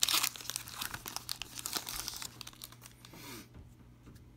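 Foil wrapper of a trading-card pack crinkling and tearing as it is ripped open by hand. The crackling is loudest at the start and stops about three and a half seconds in.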